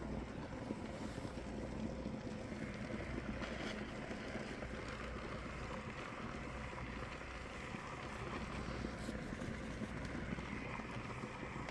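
Handheld garment steamer running: a steady hiss with a low hum underneath, unbroken while it is worked over a shirt.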